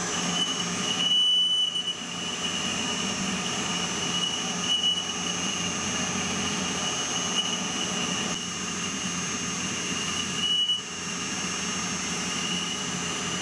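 Metal lathe boring out the bore of a bevel gear with a carbide-insert boring bar: the spindle runs steadily under a constant high-pitched squeal, which falters briefly twice.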